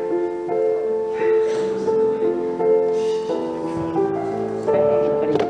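Keyboard music playing slow held chords, the notes changing about every half second to a second, with a single sharp knock near the end.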